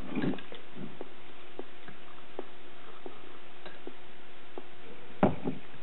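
Metal spoon clinking and scraping in a glass bowl of muesli with yogurt and milk: scattered light ticks, with one louder knock about five seconds in.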